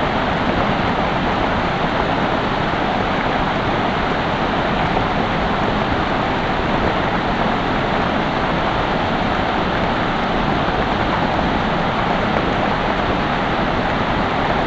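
Creek water running, with a thin stream of water falling and splashing into a shallow rocky pool: a steady, even rushing.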